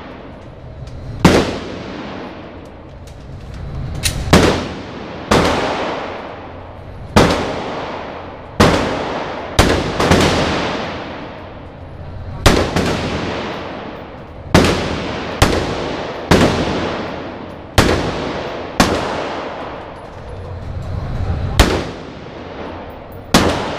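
Gunshots at a shooting range: about eighteen single shots at uneven intervals, sometimes two in quick succession. Each shot is sharp and loud and is followed by an echo that dies away over about a second.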